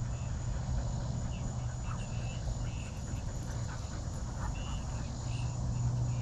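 Outdoor ambience: a steady low hum under faint insect chirps that come and go, with huskies panting close by.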